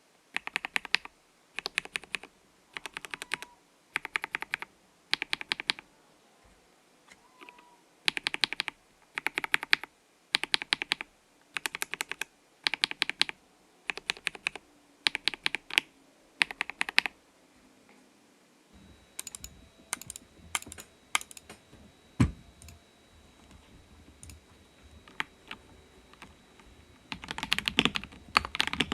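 Mechanical keyboard with linear switches (Kbd67 Lite with PBT keycaps) being typed on in short bursts of keystrokes about once a second, then only scattered single key clicks, and near the end fast continuous typing on stock Akko CS Radiant Red linear switches.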